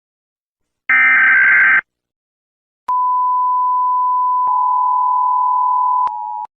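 Mock Emergency Alert System alarm: a harsh buzzing burst about a second long, then after a short gap a steady single beep tone. A second, slightly lower tone joins it partway through to make a two-tone attention signal, which drops in level near the end and cuts off suddenly.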